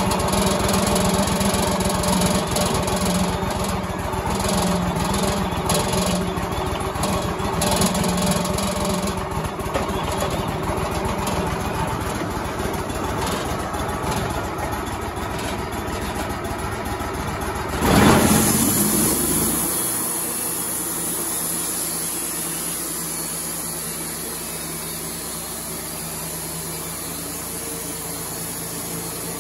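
Engine of a Wood-Mizer LT35 band sawmill running with a steady low rumble. About two-thirds of the way through there is a brief loud rush, after which the low rumble falls away and a steady hiss remains.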